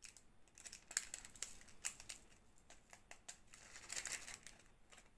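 Leftover diamond-painting drills clicking and rattling in a plastic drill tray as they are tipped back into a small plastic zip-lock bag, with some crinkling of the bag. A light, irregular scatter of ticks that comes in small clusters.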